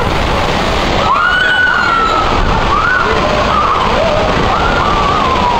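Loud, steady rush of water down a funnel water slide, with riders' long screams wavering up and down in pitch over it.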